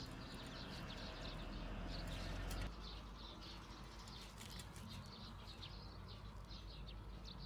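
Small birds chirping outdoors, many short quick chirps throughout, over a low hum that cuts off abruptly a little under three seconds in.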